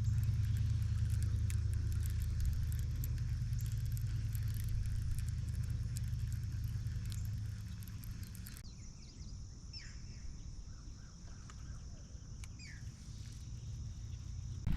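Boat motor running with a steady low hum that slowly fades over the first eight seconds or so. It then gives way abruptly to insects, with a steady high-pitched drone and a few faint chirps.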